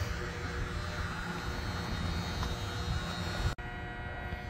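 Steady outdoor rumble of road traffic while walking. About three and a half seconds in it cuts off sharply to a quieter, steady electrical hum inside a tiled restroom.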